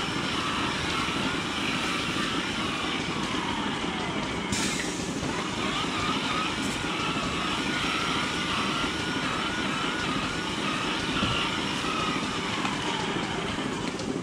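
Rotary milking parlour machinery running with a steady mechanical hum and hiss, with a faint wavering whine in the middle.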